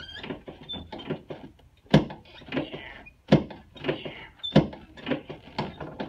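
Sharp joint cracks from manual chiropractic adjustment of the shoulder (AC) and sternoclavicular joints: three loud cracks about 1.3 seconds apart, with softer clicks between.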